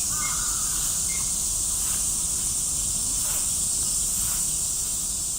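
Steady, high-pitched drone of a summer cicada chorus, with a few faint short chirps near the start.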